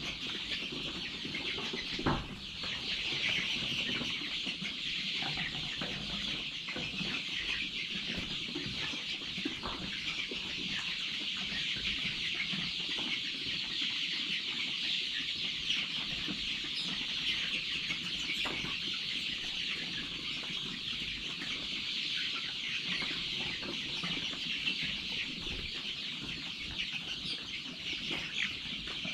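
A flock of young chickens peeping together in a dense, unbroken chatter, with one sharp knock about two seconds in.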